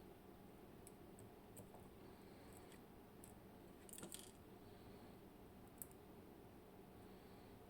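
Faint, scattered clicks of small metal lock parts being handled while a Clavis 10 dimple lock is taken apart, with a small cluster of clicks about four seconds in.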